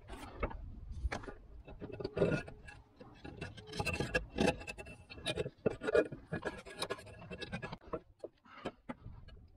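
Pliers nipping and scraping at the edge of a roof tile, with tiles knocking and rubbing against each other: irregular short clicks and scrapes.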